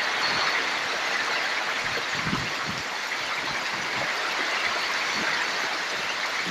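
Torrential rain pouring down in a steady hiss, with a few low thuds about two seconds in.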